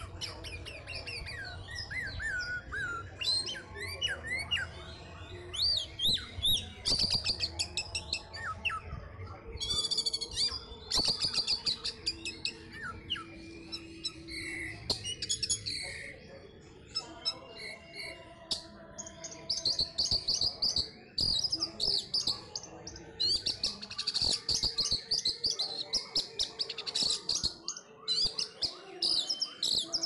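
Orange-headed thrush singing a long, varied song of rapid chirps, whistles and trills, delivered in bursts with short pauses between them.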